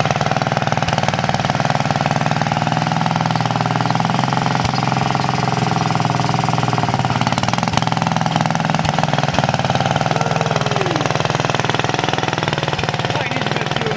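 Wheel Horse RJ58 garden tractor's 4-horsepower single-cylinder Kohler engine running steadily while the tractor is driven around.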